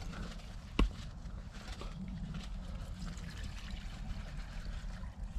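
Knife whittling a wooden stick: faint, irregular scraping and shaving, with one sharp knock about a second in.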